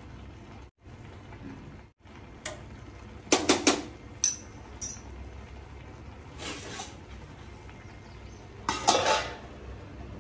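A steel spoon clinking against a stainless steel saucepan of cooking brown rice: a quick run of clinks about three seconds in, then a few lighter taps. Near the end a steel plate is set over the pan as a lid, the loudest metallic clatter, with a short ring.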